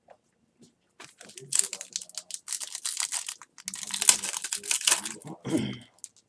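Foil trading-card pack wrapper being torn open and crinkled: a dense run of crackles lasting about four seconds.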